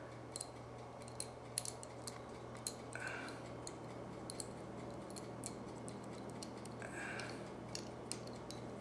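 Faint, scattered light clicks and taps of small metal pistol parts being handled, over a steady low hum. Two brief faint higher tones come about three seconds and seven seconds in.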